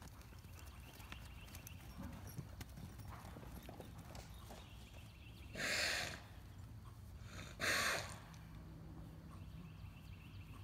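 Horse hooves clip-clopping, with two loud, breathy bursts of about half a second each, some two seconds apart, around the middle.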